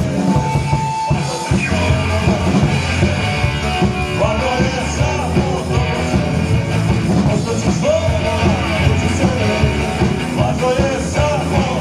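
Live rock band playing: electric guitar, bass guitar and drum kit keeping a steady beat.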